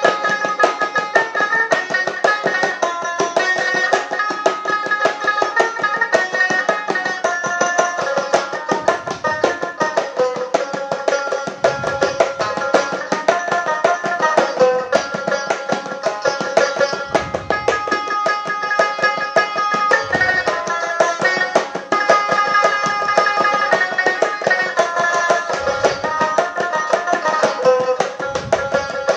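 Instrumental break in a Bengali song: a two-headed hand drum played in a quick, steady rhythm with a few deep bass strokes, under a melody line.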